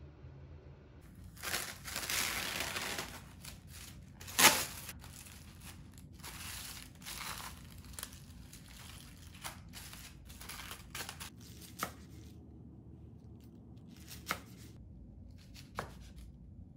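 Plastic cling wrap pulled off its roll and torn off, with the loudest snap about four and a half seconds in, then crinkling as the film is pressed over a container. Near the end come a few single knife strokes on a wooden cutting board.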